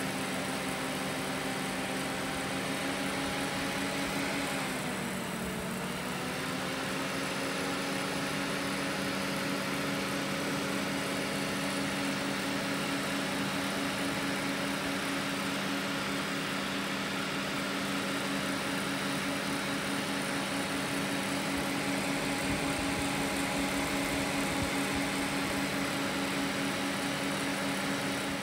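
The three cooling fans of an AMD Radeon R9 280X graphics card running, a steady whirring hum with several held tones over a rush of air; about five seconds in the pitch dips briefly and comes back up. The card is very loud, as this 2013 card draws around 200 to 250 W and runs hot.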